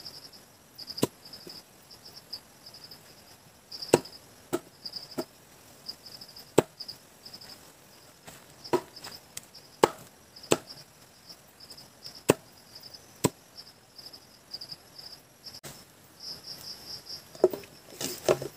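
Sharp chopping strikes at irregular intervals, roughly one every second or two with pauses, and a quick cluster of blows near the end. Crickets chirp steadily underneath.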